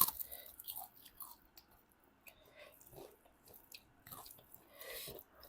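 Close-up chewing and biting sounds of people eating pork, with scattered small wet clicks and a sharp click right at the start.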